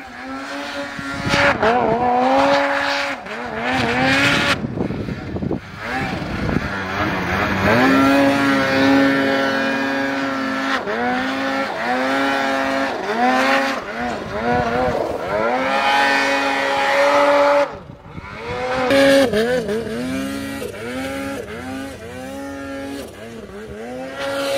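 Snowmobile engine revving up and down again and again as the sled ploughs through deep powder snow, with a brief drop in sound about three-quarters of the way through.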